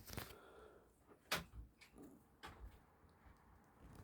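Near silence, broken by a few faint knocks or bumps, the clearest about a third of the way in.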